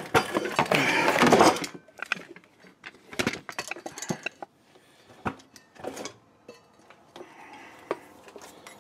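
Handling noise as a hand-held camera is moved and set down low beside a car's rear drum brake: a loud rubbing clatter for the first second or two, then scattered sharp clicks and knocks.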